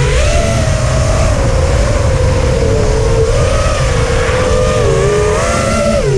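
FPV freestyle quadcopter's brushless motors and propellers whining, the pitch wavering up and down with throttle and dipping sharply near the end before climbing again, over a constant low rumble of wind on the onboard microphone.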